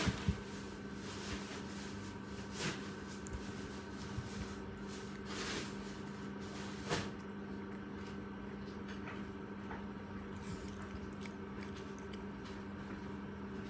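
Cat fur rubbing against the phone's microphone, with a few soft knocks at the start and again about seven seconds in, over a steady electrical hum.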